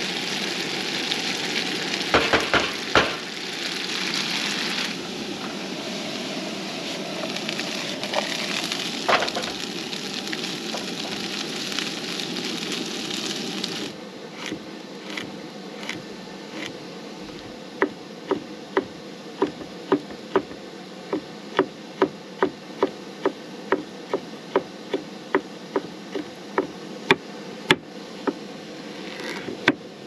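Diced food sizzling in a frying pan on a propane camp stove, with a spatula stirring and tapping against the pan a few times. About halfway through, the sizzle cuts off and a knife chops steadily on a wooden cutting board, slicing garlic then cucumber at about two strokes a second.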